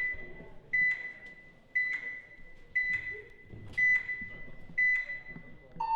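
Electronic game-start timer counting down: short high beeps about once a second, then a longer, lower tone begins right at the end as the start signal.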